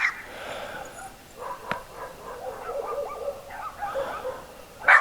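A dog barking and yapping in runs of short yaps, with a sharp click a little under two seconds in and a louder sudden sound right at the end.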